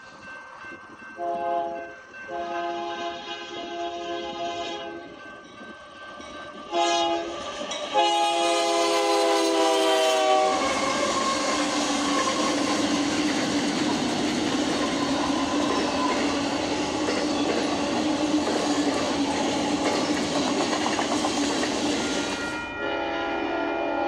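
Union Pacific diesel freight locomotive's air horn sounding four blasts in the grade-crossing pattern, the last held longest and dropping slightly in pitch as the lead unit passes. Then come the steady noise of the locomotives and train cars running past close by, with wheels clacking on the rails. Near the end another train's horn sounds.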